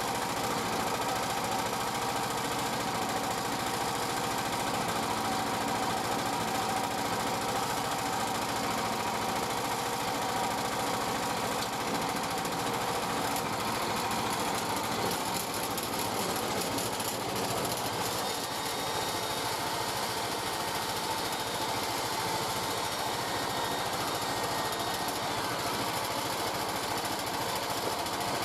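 Bandsaw mill running steadily, its engine and blade sawing through a yew log.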